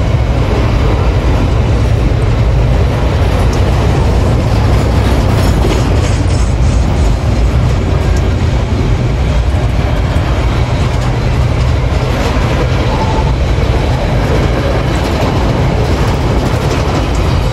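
Freight train of covered hopper wagons rolling past close by: a loud, steady rumble of steel wheels on the rails, with scattered clicks from the wheels passing over the track.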